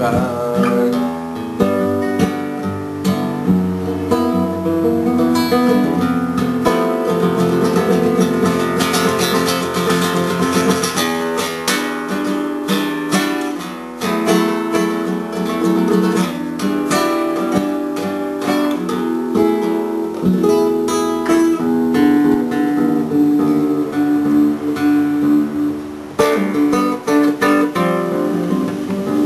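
Acoustic guitar playing an instrumental passage, strummed and picked, with no singing. The playing dips briefly about halfway through and again near the end.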